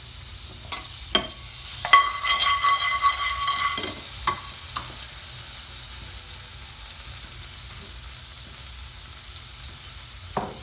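A metal spoon knocks a few times against a pan, then scrapes it with a ringing, metallic sound for about two seconds. After that comes a steady sizzle of oil, skimmed from a curry base gravy, heating in the pan.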